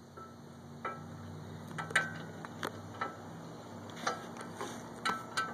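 Socket ratchet on a brake caliper bracket bolt clicking and clinking against the steel bracket as the bolt is worked loose: irregular sharp metallic clicks, the loudest about two seconds in.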